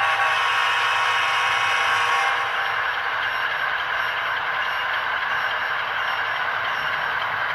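HO scale ScaleTrains Tier 4 model diesel locomotive running slowly with its train: a steady mechanical running sound, with a few held tones in the first two seconds that fade out.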